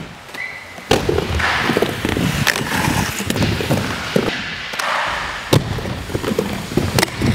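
Inline skate wheels rolling and carving across a wooden skate bowl: a steady rumble with sharp knocks, one about a second in and two more near the end.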